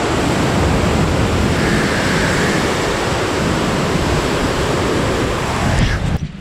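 Sea surf breaking on the rocks below a cliff: a loud, steady rush of water, with wind on the microphone. It cuts off suddenly near the end.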